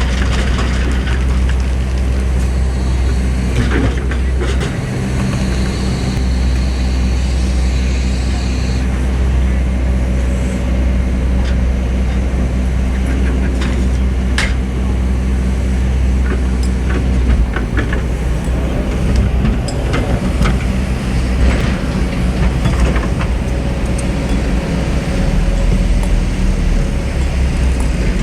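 Heavy diesel engines of working excavators running steadily, their drone shifting as the load changes, with scattered sharp knocks and clanks from the digging.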